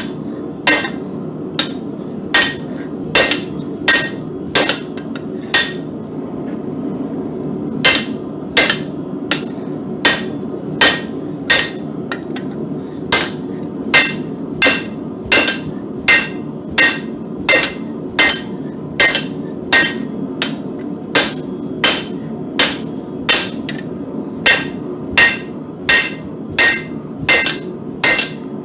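Hand hammer striking a thick bar of mild steel on an anvil, steady blows about one and a half a second, each with a short ringing tone. The blows stop for about two seconds some six seconds in, then resume. A steady low rushing noise runs underneath.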